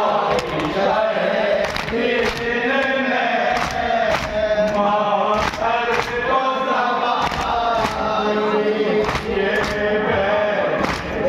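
Men chanting a marsiya together, sung lines in unison, while mourners beat their chests in matam: sharp hand slaps about twice a second in time with the chant.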